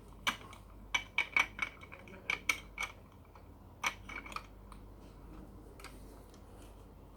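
Plastic Lego pieces clicking and clattering as they are handled: a quick run of about a dozen sharp clicks in the first four seconds or so, then only a few faint ones.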